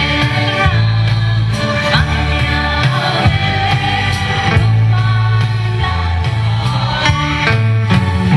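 A choir of mixed voices singing with instrumental accompaniment, a strong bass line under the voices throughout.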